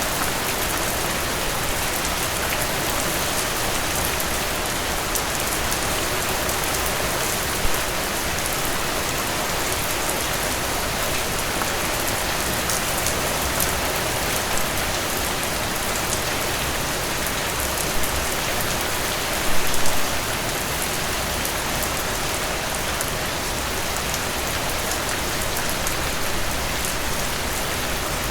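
Steady rain falling on a surface, an even hiss flecked with the taps of individual drops. A few brief louder moments, the loudest about twenty seconds in.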